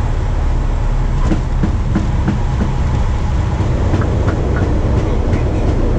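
Aircraft rolling along the runway after landing: a steady low rumble, with a run of short thumps about three a second from the wheels going over the runway surface between about one and five seconds in.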